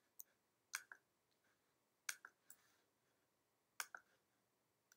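Mouse-button clicks, each a quick press-and-release pair, four or five times a second or so apart, against near silence.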